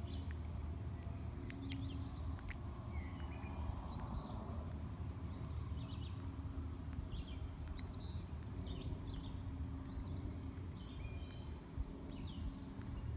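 Small birds chirping repeatedly, short arched calls about once a second, over a steady low rumble.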